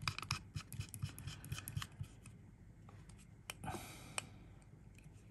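Quick run of faint small metallic clicks and scrapes as the brass Fat Rabbit RTA deck is twisted onto the box mod. The clicks die away after about two seconds, and a short rustle and a single click follow about four seconds in.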